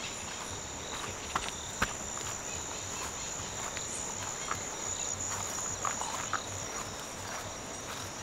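Steady high-pitched drone of insects in tropical vegetation, with scattered crunching footsteps, first on gravel and then on grass and leaves.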